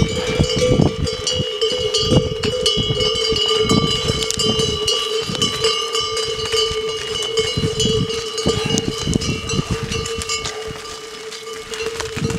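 Bells on a passing train of pack yaks, clanking and ringing continuously with a steady bell tone, over low thumps.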